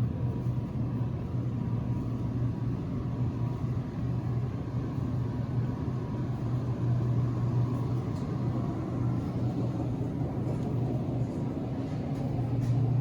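Steady low vehicle rumble, unbroken throughout, with a faint thin steady tone above it.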